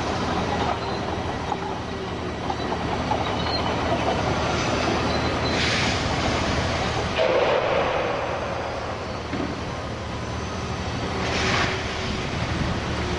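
Liebherr 954 scrap handler running steadily, with continuous rattling and clanking of scrap metal as the grab works the pile. Two short hisses, about six seconds in and again near the end, and a louder rumble around seven and a half seconds.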